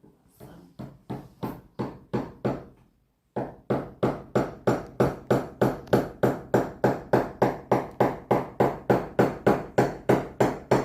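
A hammer striking repeatedly, each blow with a short ringing tail. There are about six blows, a brief pause, then a steadier and louder run of about three or four blows a second.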